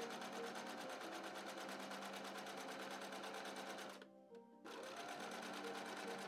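Electric sewing machine stitching through fabric at a steady fast pace, its needle ticking rapidly over the motor's hum. It stops for about half a second about four seconds in, then starts up again.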